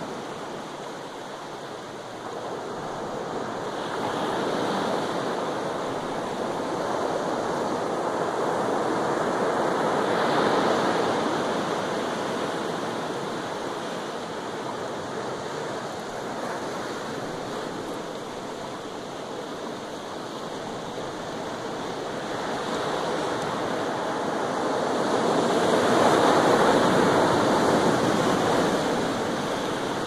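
Pacific Ocean surf breaking and washing up onto the beach: a continuous rush that swells and ebbs, loudest about ten seconds in and again near the end.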